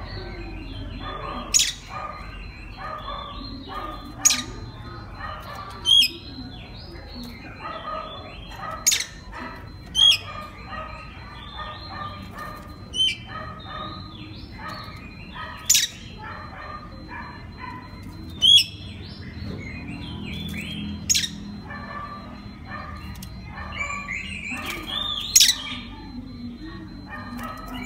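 Oriental magpie-robin (kacer) song: a busy, continuous stream of short chirping notes, cut through every two to three seconds by a loud, sharp whistled note.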